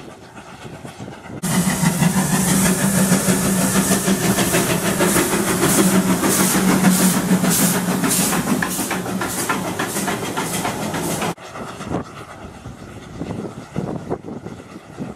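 NG G16 Beyer-Garratt articulated steam locomotive close by, hissing steam from around its cylinders over a low steady tone, with a regular beat of steam pulses in the middle. The loud hiss begins suddenly about a second and a half in and cuts off suddenly after about eleven seconds, leaving the fainter sound of the train at a distance.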